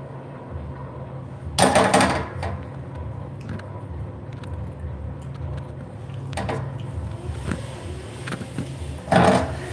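Two loud crashes of hard objects being smashed together, one about a second and a half in and one near the end, each a short clattering rattle, with a few lighter knocks between; these are collision tests, the pieces checked afterwards for damage. A steady low hum runs underneath.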